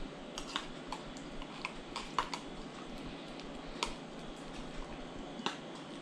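Irregular light clicks and ticks from a metal spoon and an opened tin can being handled during eating, about a dozen small taps with no rhythm, the sharpest about two, four and five and a half seconds in, over a low steady room hum.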